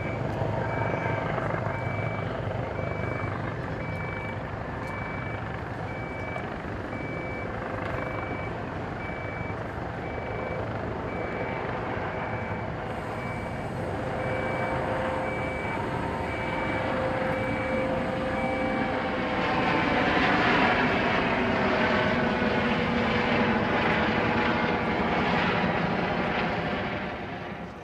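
A vehicle's reversing alarm beeping at an even pace over a steady engine rumble. The beeping stops about two-thirds of the way through, and a louder rushing noise takes over until near the end.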